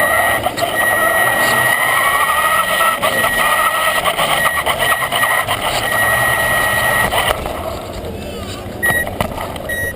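Electric motor and gears of a Traxxas Slash RC truck whining as it drives, the pitch sliding up and down with speed over a rumble of tyres, heard close from a camera mounted on the truck. It stops about seven seconds in, leaving a quieter background of voices.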